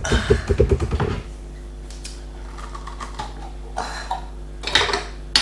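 Rapid clicking for about a second, then a few sharp knocks near the end, as a jar of jalapeños and utensils are handled.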